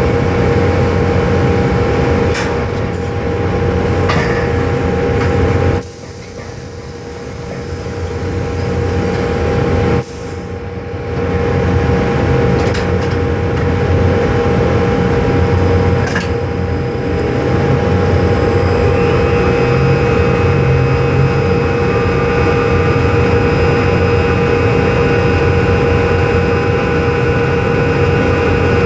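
Drilling rig floor machinery running steadily while casing is run, a loud constant drone with a steady hum. A high hiss comes in about six seconds in and stops about ten seconds in, and the noise dips briefly just after.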